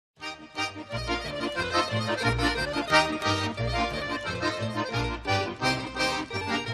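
Cheerful instrumental background music with a pulsing bass line, beginning out of silence a moment in.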